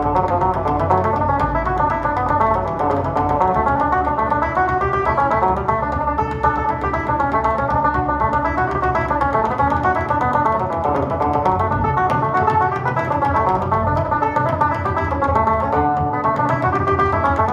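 Tenor banjo playing a fast Irish reel, with a Christian Hedwitschak TrHed bodhrán beating along. About three seconds in, as the tune's B part starts, the bodhrán settles on a low D and holds it for a few seconds, so it sounds like a bass.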